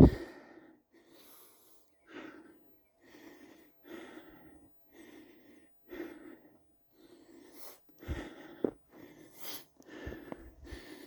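Rhythmic sounds of a person hiking through snow, about one every second, with a sharp knock right at the start.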